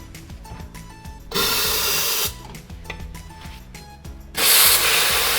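Espresso machine steam wand opened in two hissing blasts of about a second each, the second louder, over quiet background music.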